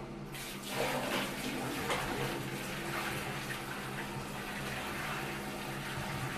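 Water poured from a plastic bucket into a ceramic commode bowl, a steady splashing pour that grows louder about a second in. The pour is a leak test of the freshly seated commode's outlet joint.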